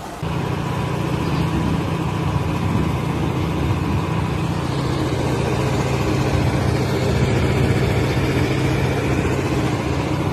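Steady, loud rushing of a heavy downpour and floodwater, with a deep rumble underneath.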